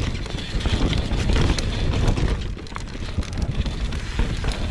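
Mountain bike descending a rocky dirt trail: tyres running over dirt and stones and the bike rattling over bumps in many short knocks, with wind buffeting the microphone.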